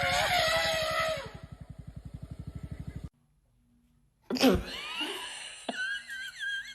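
A cat's drawn-out meow, falling in pitch over about a second, over a low, fast, even pulsing. The sound cuts out abruptly, and after a second of silence high wavering whistle-like tones begin.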